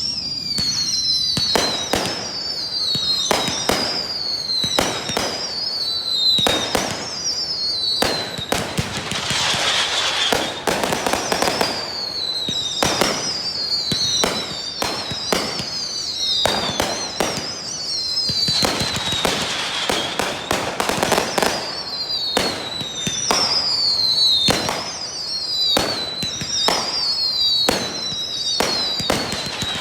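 Fireworks display: a dense, continuous run of bangs, overlapped by many short whistles that each fall in pitch.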